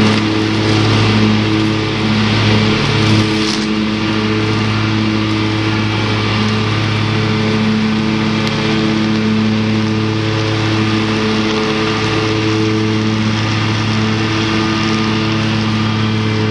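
John Deere Z-Trak zero-turn mower's engine running steadily at work, with its deck-mounted trimmer spinning and cutting grass and weeds, a constant hiss over the engine note.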